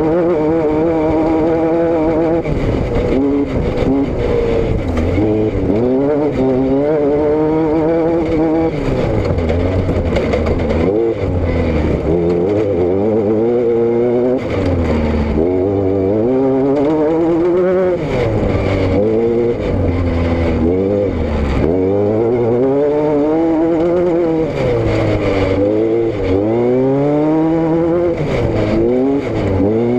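Vehicle engine and exhaust running under way, its pitch climbing and falling back again and again as it accelerates and eases off.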